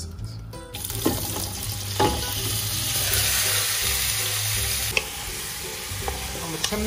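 Beef strips and onion wedges frying in hot melted ghee in an enamel pot. A steady sizzle starts suddenly under a second in, and the wooden spoon stirring the meat knocks against the pot a few times.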